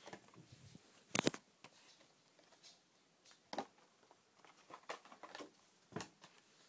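Handling noise as a blister-carded Hot Wheels car is reached for and taken down, with the phone moved about: a few scattered sharp knocks and taps, the loudest about a second in.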